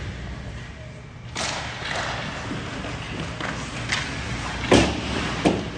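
Sharp thuds in a large hall: a couple of light knocks, then two loud thuds about three-quarters of a second apart near the end, over steady background noise that grows louder about a second and a half in.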